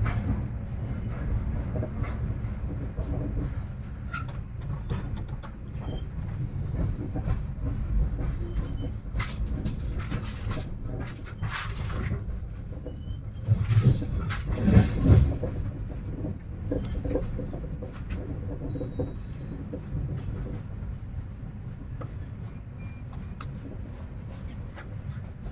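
Goods train rolling, a steady low rumble of the wagons with scattered clanks, and a louder run of heavy knocks about fourteen seconds in.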